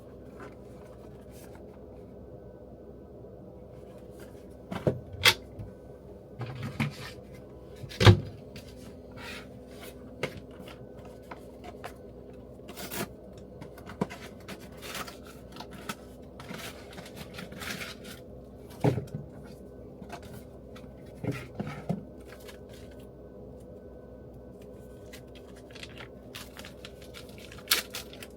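Scattered knocks, clicks and light clatter of objects being handled, the loudest knock about eight seconds in, over a steady low hum.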